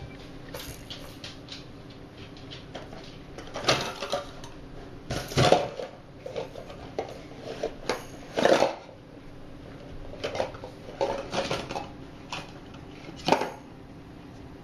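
Hard toys clattering and knocking together as a baby handles them: irregular clacks and rattles, the loudest about five and a half and eight and a half seconds in.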